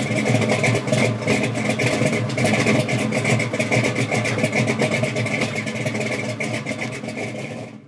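Chevy rat rod truck's engine idling steadily with a rapid pulsing beat, fading out near the end.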